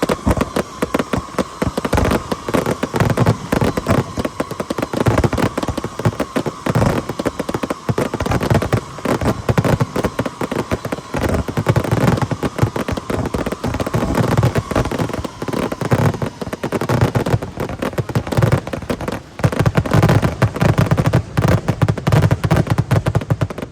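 Fireworks finale: a dense, continuous barrage of bangs from aerial shells and multi-shot cakes firing over one another. It thins out right at the end.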